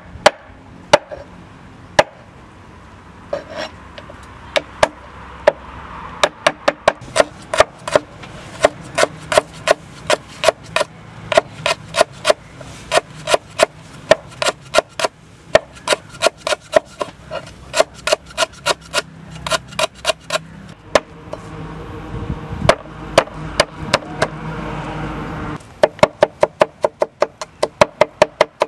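Large kitchen knife chopping on a wooden cutting board, through chicken, then lemongrass and garlic: sharp knocks, a few at first, then a steady run of about two to three a second. The chopping eases off briefly a little after the middle, then comes back faster near the end.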